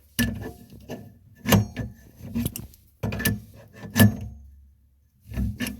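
Irregular metallic clinks and knocks, about five in all, with handling noise between them, as a faucet water supply hose is fitted and tightened onto the hot water connection under a kitchen sink.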